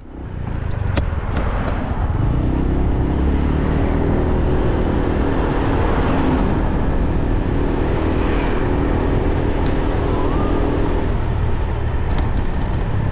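Motorbike engine running while riding along a road, with road and traffic noise around it. A steady engine tone comes up a couple of seconds in and eases off near the end.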